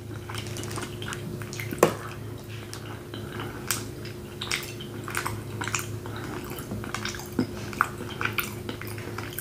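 Close-miked chewing of a mouthful of barbecue baked beans: soft wet squishing with scattered lip and mouth clicks, over a steady low hum.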